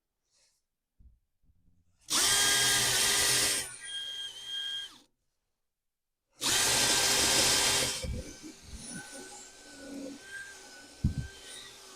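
Power drill boring holes in the wooden shed door for a latch bolt: two runs of about a second and a half each, with the motor whining down after each run, then a few light knocks.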